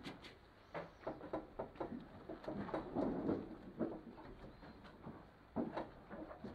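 Sponge wet with methylated spirits dabbed repeatedly against a glazed painted board: a quick, irregular run of soft dabs and squelches, thickest about halfway through.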